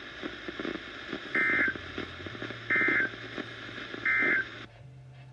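Three short, harsh, buzzing data bursts of the Emergency Alert System (SAME) end-of-message code from a NOAA Weather Radio receiver, each about a third of a second long and about a second and a half apart. They mark the end of the severe thunderstorm warning broadcast. Static crackle and hiss from the radio lie underneath and cut off near the end.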